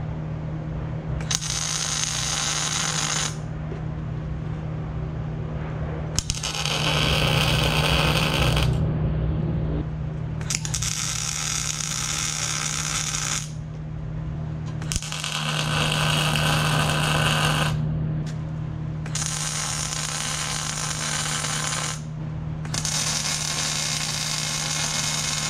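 Arc welder laying a series of tack welds on steel hitch hinges: about six separate bursts of crackling, sizzling arc, each two to three seconds long, with short pauses between them. A steady low hum sits beneath.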